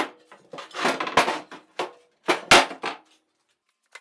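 Metal machine parts being handled and fitted together: a run of clanks and knocks with some clatter, loudest about two and a half seconds in, then it goes quiet.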